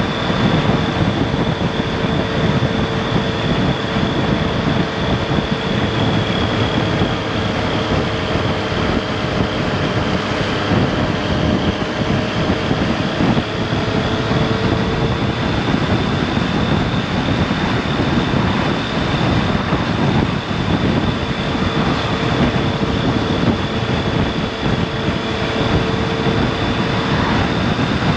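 Triumph Street Triple RS's 765 cc inline-three engine running at a steady cruise of about 50 mph, with wind rushing over the microphone. The level holds steady throughout, with a faint steady whine on top.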